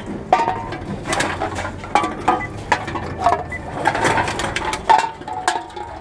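Empty drink containers knocking and clattering irregularly, several a second with short squeaks between, as they are fed one after another into a container-deposit reverse vending machine.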